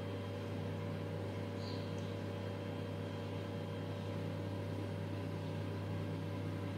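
A steady low machine hum with a faint hiss, like a running appliance or fan.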